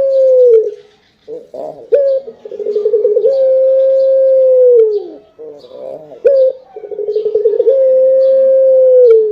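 A young domestic ringneck dove (puter), about six months old, coos loudly three times. Each coo opens with a quick stuttering run and then holds one long steady note that drops away at the end. Faint high chirps sound behind it.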